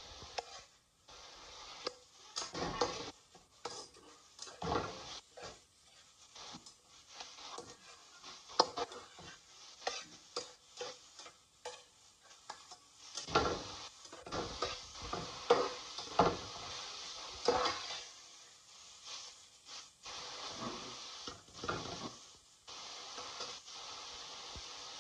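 A slotted metal spatula scraping and turning diced chicken and red onion around a metal frying pan in irregular strokes, with a light sizzle from the oil underneath. Near the end the scraping stops and only the steady sizzle is left.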